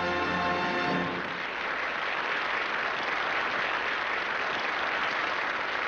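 An orchestra's final held chord cuts off about a second in, followed by steady audience applause.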